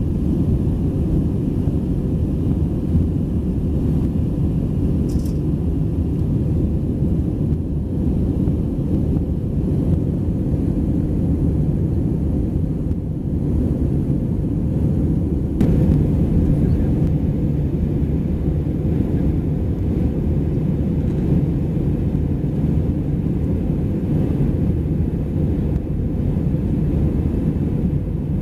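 Steady cabin noise of an Airbus A320 in flight, heard inside the cabin: an even low rumble of engines and airflow that stays the same throughout.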